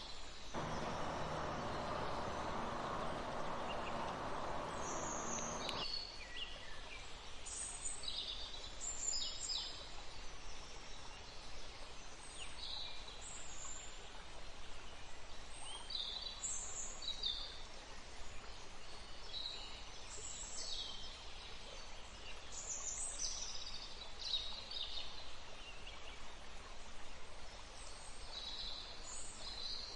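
Forest songbirds chirping and calling over and over, short high calls scattered throughout. During the first six seconds a lower rushing noise sits beneath them and cuts off abruptly.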